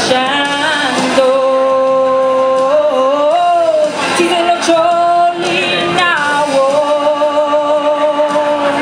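A woman singing solo into a handheld microphone, amplified in a hall, holding long, steady notes with short slides between pitches.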